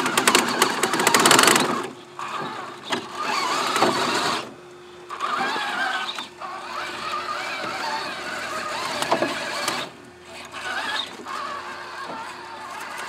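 Axial SCX6 1/6-scale RC rock crawler's electric motor and gears whining as it climbs, the pitch rising and falling with the throttle. Its tyres and chassis scrape and knock on the rock, loudest in the first second or so.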